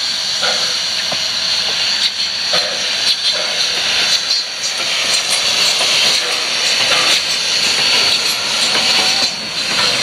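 Steam train in motion, hauled by Ww 644, a 4-6-4 tank steam locomotive: a steady loud hiss of steam and running noise, with scattered sharp clicks.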